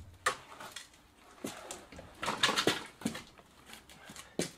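Footsteps in clogs on a concrete floor and a bicycle being wheeled in: an uneven string of knocks and clacks, with a louder scraping stretch a little past halfway.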